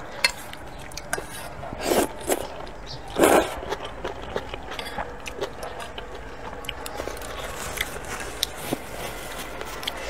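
Close-miked eating of spicy sweet potato vermicelli noodles: chewing and mouth sounds, with scattered light clicks of chopsticks against a stainless steel pan. Two louder slurps of noodles come about two and three seconds in.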